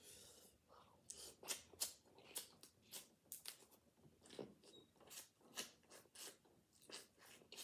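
Eating snow crab legs: a run of faint, sharp clicks and crackles, two or three a second, from crab shell being picked apart and from chewing.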